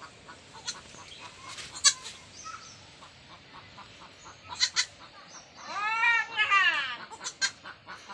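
A long animal call, rising then falling, about six seconds in, among scattered sharp taps and clicks, the sharpest near two seconds in.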